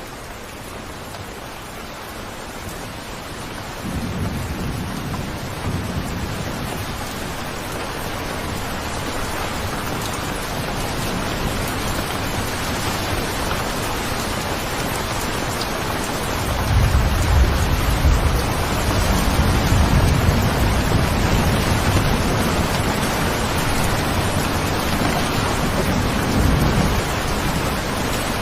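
Steady rain with rolling thunder: a low rumble comes in about four seconds in, and a louder, longer rumble starts a little past the middle and rolls on for about ten seconds.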